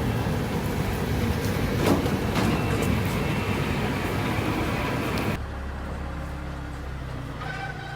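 Heavy machinery running with a dense, rattling noise and a low hum, cutting off suddenly about five seconds in to a quieter steady hum.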